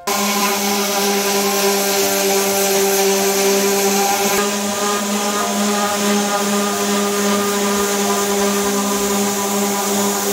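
Electric random orbital sander running steadily while sanding a wooden board: a loud, even motor hum with a hiss over it.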